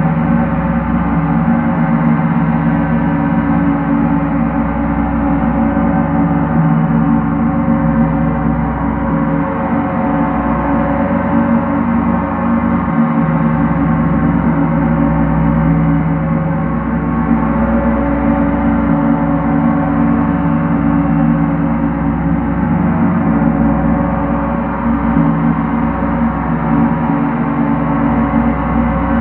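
Large gong played continuously with two felt-headed mallets. It makes a steady, sustained wash of many overlapping ringing tones, with no single strike standing out.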